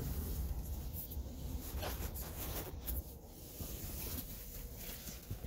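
Strong wind buffeting a car, heard inside the cabin as an uneven low rumble, with a single knock at the start.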